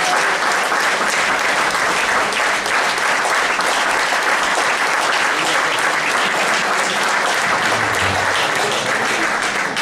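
Audience applauding: dense, steady clapping from a seated crowd after a speaker's closing thanks.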